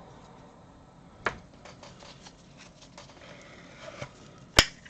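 Small clicks and light rustles of a controller and tools being handled on a workbench, with a sharp click about a second in and a louder one near the end.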